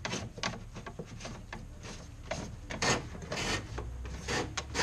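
A long wire-pulling rod being drawn through the aluminum jon boat's hull, rubbing and scraping against the metal in a run of irregular strokes.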